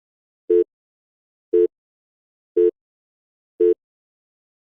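Countdown timer beeping once a second: four short, identical beeps at the same pitch, ticking off the seconds given to answer.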